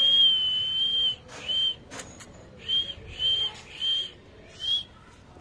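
A person whistling to call a puppy: one long, steady, high whistle, then five short whistles at the same pitch, the last one rising slightly. There is a single sharp click about two seconds in.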